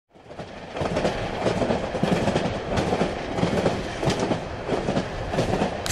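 Train running on rails: a steady rumble with irregular knocks, fading in over the first second.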